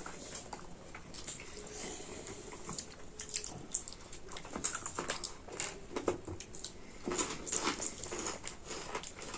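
People chewing and biting food at the table, with scattered short crisp clicks and mouth noises.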